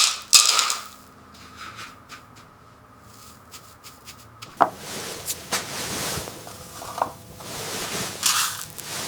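Handling noises on wood: sharp knocks and clicks at first, then longer scraping rasps from about halfway through.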